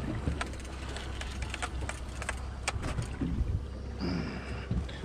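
Boat motor running with a steady low hum, overlaid by scattered sharp clicks and ticks of fishing gear being handled while a halibut is reeled up beside the boat. A brief high whine comes about four seconds in.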